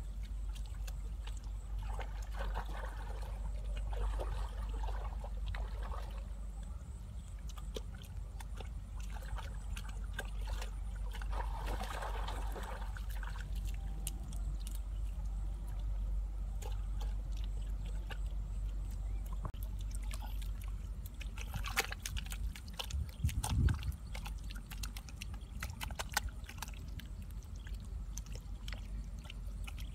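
Bare hands squelching, slapping and smoothing wet mud to shape a pit wall, with scattered wet smacks and a few louder slaps about two-thirds of the way through.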